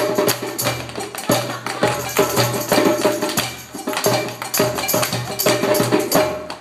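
Tap dancing: quick, irregular clicks of tap shoes over live jam music with sustained pitched notes.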